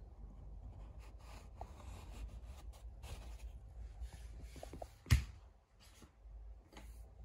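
Quiet rubbing and handling noises, with one sharp knock about five seconds in and a fainter click near the end.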